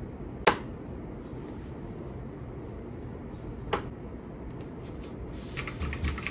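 Typing on a computer keyboard: quick key clicks starting about four and a half seconds in and getting busier toward the end, after two single sharp clicks earlier on, over a low steady hum.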